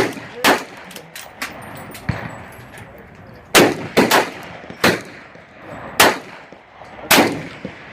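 Gunshots at a shooting range: one shot about half a second in, then after a gap five shots roughly a second apart, with fainter cracks in between.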